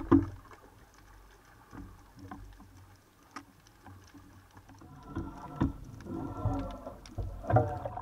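Underwater sound picked up by a camera mounted on a speargun: water moving against the housing with scattered clicks and knocks, a sharp thump at the very start, and louder, irregular sloshing in the last few seconds as the diver comes up to the surface.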